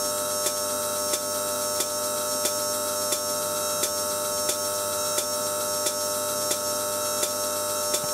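High-voltage electrical discharge at a wire electrode tip in electrolyte: a steady high-pitched buzzing whine over a low hum, with a sharp click repeating evenly about one and a half times a second.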